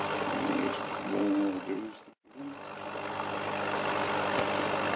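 Steady electric hum of the air pump that feeds the cloner's twin air stones. A voice murmurs briefly about a second in, and the sound cuts out for a moment just over two seconds in before the hum resumes.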